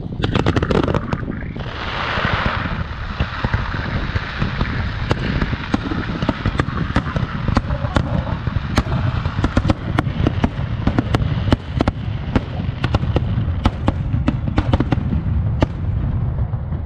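Fireworks display: a quick string of sharp bangs in the first second, then shells bursting in a steady run of cracks and booms, several a second, over a continuous low rumble.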